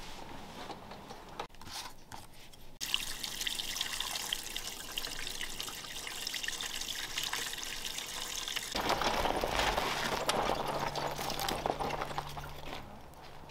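Gasoline pouring from a plastic gas can through a funnel, a steady splashing stream that starts suddenly about three seconds in. About nine seconds in it gives way to a louder, steady noise with a low hum.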